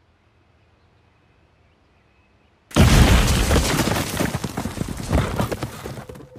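Near silence, then about two and a half seconds in a sudden, very loud rumbling crash breaks out, thick with crackling and snapping, and dies away over the next three seconds.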